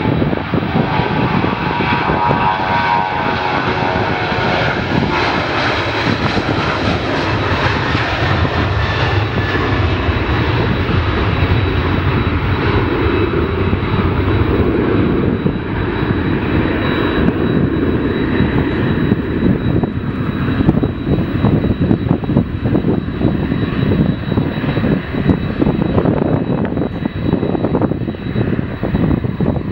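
Jet airliner's engines roaring as it passes close by. In the first several seconds the sound has a sweeping, phasing quality. After about ten seconds the high hiss fades and a lower rumble carries on to the end.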